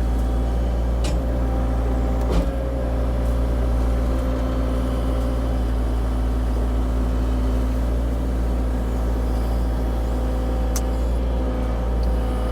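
CAT 304 E2 mini excavator's diesel engine running steadily, with a few knocks as the machine works; the loudest knock comes about two and a half seconds in.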